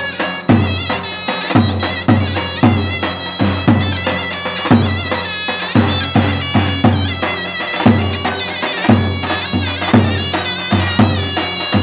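Davul and zurna playing Turkish folk music. The zurna's nasal reed melody is fast and ornamented over the davul's steady beat, which lands a heavy bass stroke about once a second with lighter strokes between.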